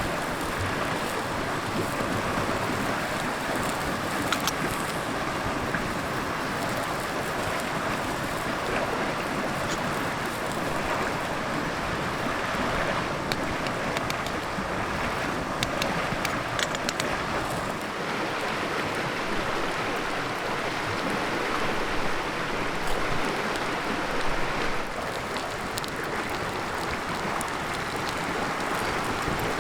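River water flowing over rocks, a steady rushing wash.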